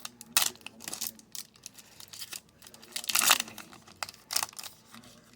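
Foil wrapper of a hockey card pack crinkling and tearing as it is opened, in a series of short rustles, the longest and loudest about three seconds in.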